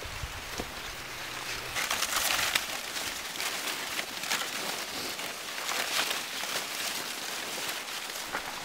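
Dry corn leaves and stalks rustling and crackling as people push through a standing cornfield on foot, along with their footsteps; it is loudest about two seconds in.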